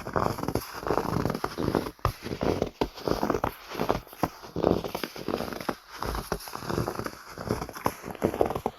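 Footsteps crunching in snow at a steady walking pace, one step after another, with the snow squeaking and packing under each boot.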